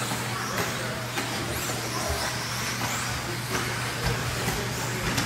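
A field of electric 4WD off-road R/C buggies racing on a dirt track. Their motors whine, rising and falling in pitch as the cars accelerate and brake, over a steady wash of tyre and chassis noise, with a steady low hum underneath.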